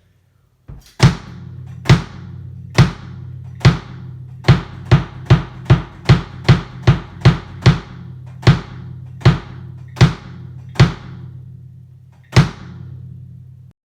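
PDP Concept Birch 18x22 kick drum (7-ply birch shell, two pillows inside, heads tuned low) struck about eighteen times with the pedal: slowly at first, quickening to two or three beats a second in the middle, then slowing again. Each beat leaves a low boom ringing under the next.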